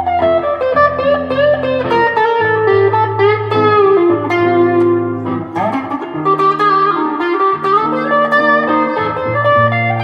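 Electric guitar, a Vintage V100 Les Paul-style guitar through a Fender Mustang GTX100 amp, playing a lead line with string bends over a looped backing of held lower guitar notes.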